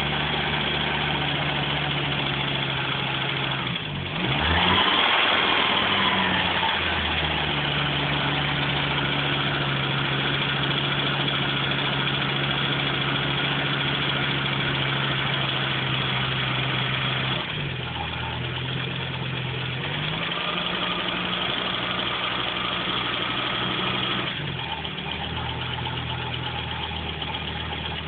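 Audi 200 20V's 3B 2.2-litre turbocharged five-cylinder engine idling, with one brief rev about four seconds in and two later shifts in engine speed. The running includes the noise the owner is chasing after a rebuild: it appears as the engine warms, despite new tappets, good oil pressure and correct cam timing.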